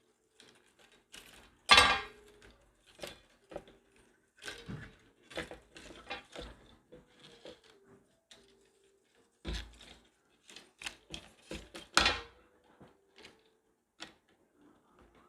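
Hand disassembly of a Tesla Model 3 steering column module: irregular clicks, taps and knocks of plastic parts being pried apart and handled, with two louder knocks, about 2 s and 12 s in.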